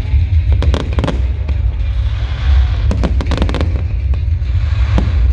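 Fireworks bursting in quick volleys of sharp cracks and bangs, one cluster at the start and another about three seconds in, over a constant deep rumble.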